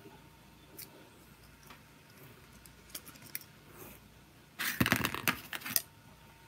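Plastic toy figures and a toy motorcycle being handled and set down on a cutting mat: a few faint clicks, then a burst of plastic clattering and rattling for about a second, about four and a half seconds in.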